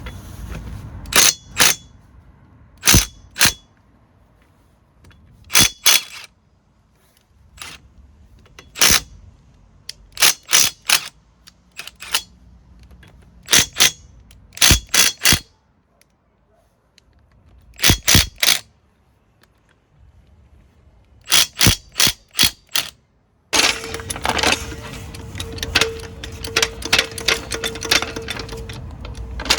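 Sharp metal strikes in groups of two to four, with pauses between them. About two-thirds of the way through, a cordless impact driver starts hammering continuously with a steady whine, working to undo a nut during drive shaft removal on a van.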